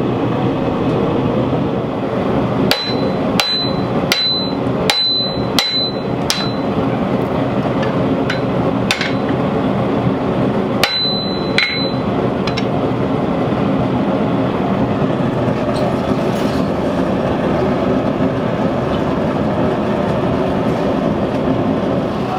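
Hand-hammer blows on a red-hot 52100 carbon steel knife blank on an anvil, each with a bright ring: six strikes in a quick run a few seconds in, then five more spread out up to the middle. Under them the forge burner keeps up a steady roar.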